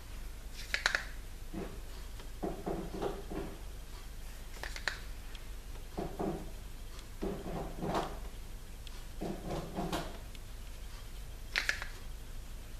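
Soft, repeated rubbing strokes of a make-up brush swept across the face, with three light clicks from handled make-up items.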